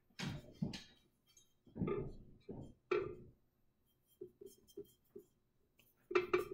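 Light 'tink tink tink' clinks of a paintbrush working against a painted butterfly stepping stone: a string of short separate taps, with a quick run of four about four seconds in.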